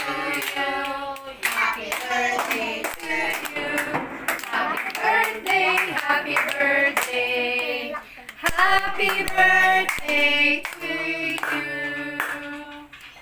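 A small group of voices singing a birthday song together, with hand claps kept in time throughout.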